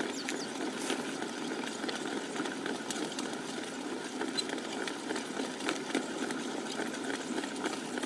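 Potter's wheel spinning with a steady mechanical hum while wet clay is shaped on it by hand, with a few faint ticks.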